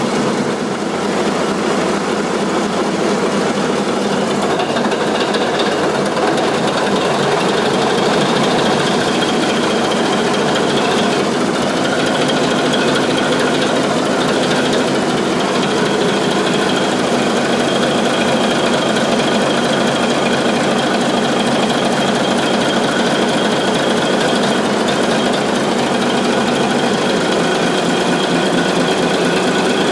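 The main diesel engine of the FM Glacier running steadily, heard close up beside its fuel-injection gear: a loud, even, rapid mechanical clatter with a faint steady whine over it.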